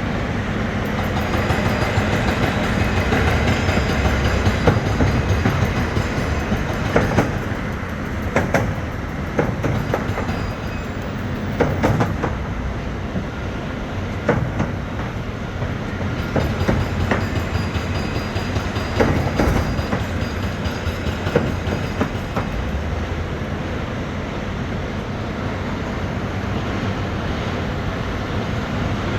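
Bauer BG42 rotary drilling rig running: a steady heavy diesel drone with irregular metallic clanks and knocks, several sharp ones in the first two-thirds.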